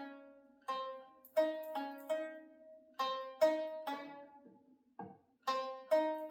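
A plucked string instrument playing a short melodic phrase of quickly decaying notes, several a second, with a pause and a short knock about five seconds in before the notes start again.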